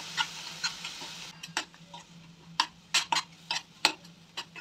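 Spatula stirring a thick tomato masala in a stainless steel pan, knocking and scraping against the metal in irregular sharp clicks. A frying sizzle is heard for the first second or so.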